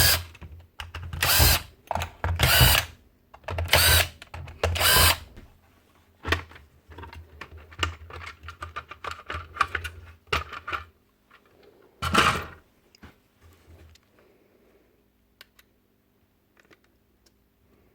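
Power drill run in short bursts, about five in the first five seconds and once more about twelve seconds in, taking apart a nail gun's housing. Light clicks and rattles of small parts being handled come in between.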